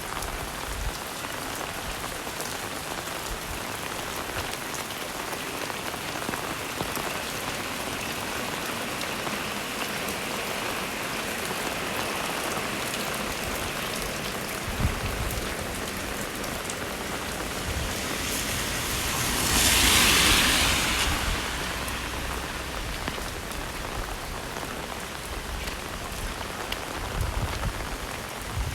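Heavy rain falling steadily, an even hiss of drops. About two-thirds of the way through, a louder hiss swells and fades over about three seconds.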